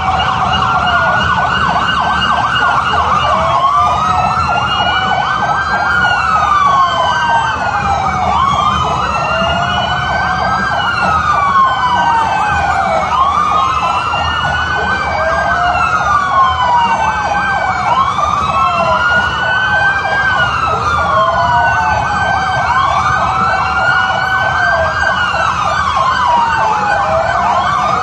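Several vehicle sirens wailing at once, each rising and falling in pitch about every two and a half seconds, out of step with one another, over a low steady rumble.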